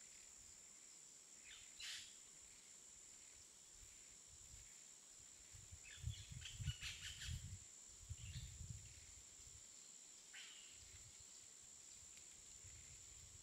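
Very faint outdoor ambience with a few short bird chirps, about two, six to seven, and ten seconds in, over a faint steady high whine.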